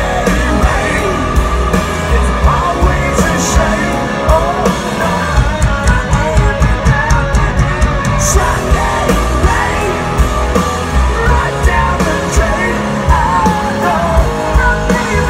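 Rock band playing live at full volume: drums with cymbal crashes every few seconds, electric guitars and bass, and a sung lead vocal.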